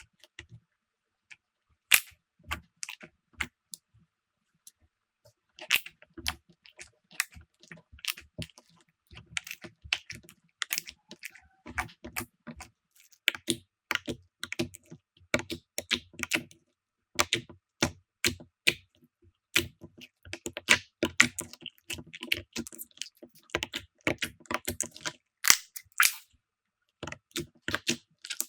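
Slime being pressed and worked by hand, giving many small sharp clicks and pops in quick irregular runs, with one louder snap about two seconds in.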